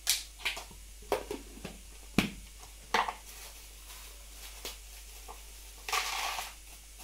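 Small plastic spice packets crinkling and plastic tubs and lids being handled and set down, giving a scattering of sharp clicks and taps. A longer crinkle of plastic bag comes about six seconds in.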